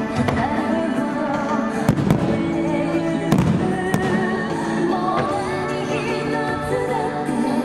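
Fireworks bursting in several sharp bangs, the loudest about two and three seconds in, over a loud anime song with singing.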